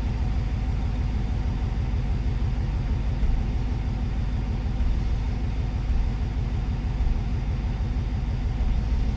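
1994 Corvette's LT1 small-block V8 idling steadily in neutral with the clutch pedal pushed in, a regular thud in time with the idle; the owner wonders whether it is a misfire.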